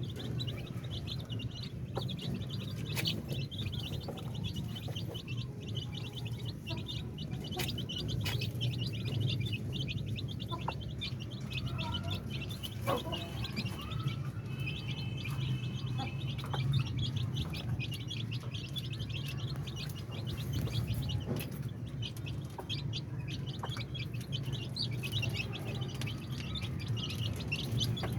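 Many small birds chirping rapidly and continuously over a steady low hum.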